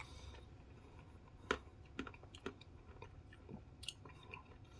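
Faint chewing of a mouthful of Dairy Queen Reese's Peanut Butter Cup Pie Blizzard, soft-serve with frozen peanut butter cup pieces and graham cracker crust, with a few soft mouth clicks.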